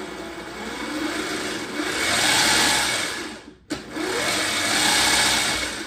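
Hangkai 48V 1200W electric outboard motor whirring on its first powered test, throttled up and back down twice. Each time it gives a whine that rises in pitch, holds and falls off; the first run-up is longer, with a sudden break between the two.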